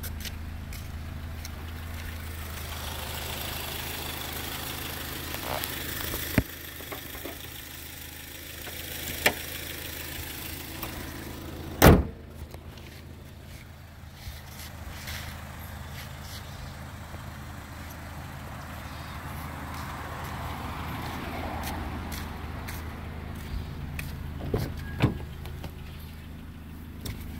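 2010 Acura TSX engine idling steadily, a low hum. A sharp, loud knock comes about twelve seconds in, with a few lighter knocks near the end.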